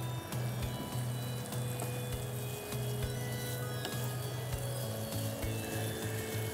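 Potato sticks and spiced dried-fish masala sizzling in a frying pan while a wooden spatula stirs them, with light scrapes and taps of the spatula against the pan.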